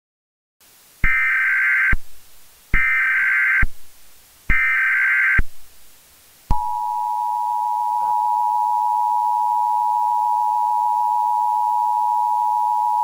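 Emergency Alert System tones: three short, loud bursts of SAME header data, each about a second long, then, from about six and a half seconds in, the steady two-tone EAS attention signal.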